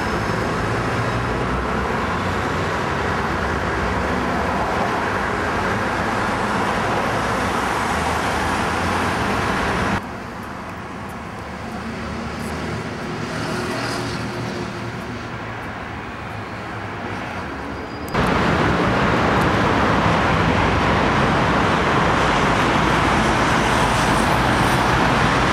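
City street traffic: a steady wash of passing cars and other motor vehicles. It drops to a quieter level about ten seconds in and comes back up sharply about eight seconds later.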